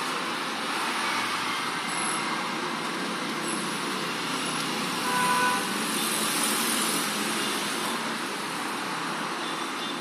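Steady outdoor background noise, an even rush with no distinct events, with a brief faint tone about five seconds in.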